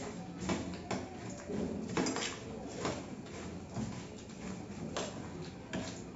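Steel spoons scraping and clinking on steel plates as two people scoop up ghugni and puffed rice, with irregular sharp taps about a second apart, over chewing.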